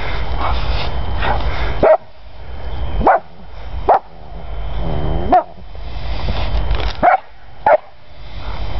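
Yellow Labrador retriever with its nose down a mole hole, giving about six short, sharp yips that fall in pitch, with a drawn-out whine about halfway through. A steady scuffling noise runs under the calls as it digs and noses into the hole. These are the excited calls of a dog hunting a mole underground.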